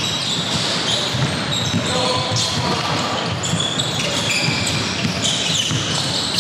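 Basketball game on an indoor court: the ball bouncing again and again on the floor, with many short, high sneaker squeaks over a noisy hall background.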